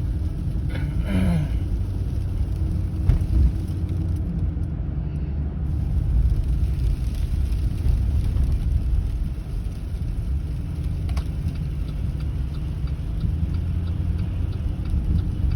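Steady low rumble of a car driving on a winter road, heard from inside the cabin.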